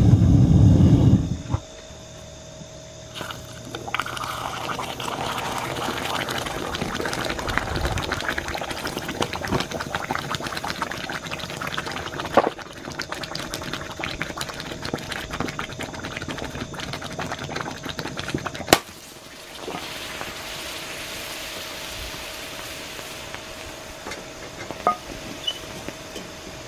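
Red-hot molten lava sizzling and crackling in a glass dish of corn oil, after a brief loud low rumble at the very start. A little past halfway one sharp crack, the loudest moment, as the heat shatters the glass dish; a quieter sizzle with a few small pops follows.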